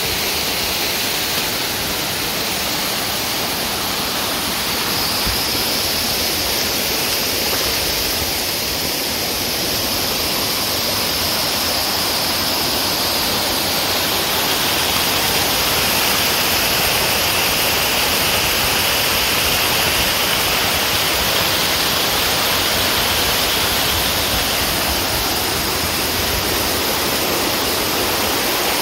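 Creek water rushing over rock ledges and down a tiered waterfall: a steady, loud rush of white water that swells a little about halfway through.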